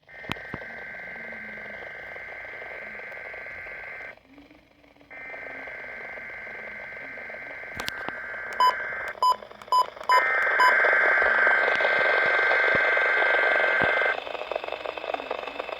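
Weather radio SAME digital alert header, sent as three bursts of buzzing two-tone data, each about four seconds long and a second apart, the third louder. This is the coded header that triggers alert-equipped weather radios for the monthly test. Five short beeps sound near the middle, over a light radio hiss.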